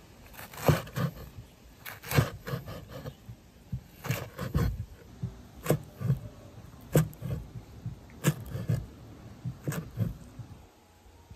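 Kitchen knife chopping taro stalks on a cutting board: a series of sharp, uneven knocks, often in pairs, about one to two a second.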